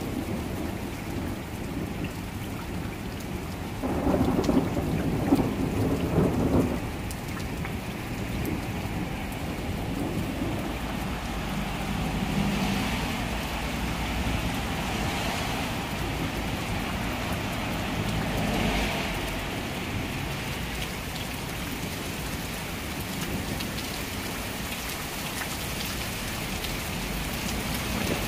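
Rain falling steadily in a thunderstorm, with thunder rumbling; a louder rumble comes about four seconds in and lasts a couple of seconds.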